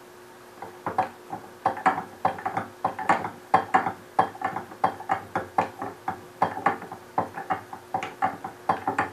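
Hand screwdriver tightening down the screw that holds the pulley in a Cannon downrigger's boom handle: a run of quick, uneven clicks, a few a second, starting about half a second in.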